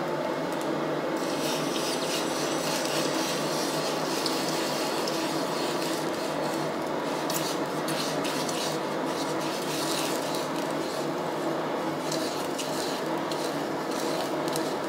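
Scratchy rubbing and scraping strokes on forged steel, irregular and starting about a second in, over a steady hum from shop equipment.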